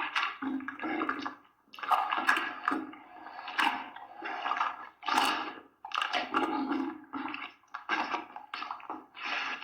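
Demon sound effect: a noise in irregular bursts, each lasting from a fraction of a second to about a second, with short gaps between them.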